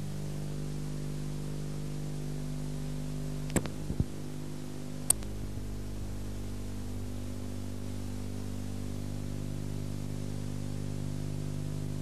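Steady electrical hum and hiss from an old video recording, with no game sound coming through. A few sharp clicks about three and a half to five seconds in.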